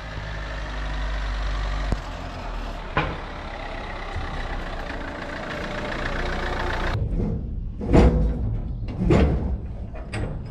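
Small Citroën work van driving up with its engine running, the sound swelling as it approaches, then cutting off abruptly. Near the end come two loud metal clanks, about a second apart, as a shipping container's door lock is worked.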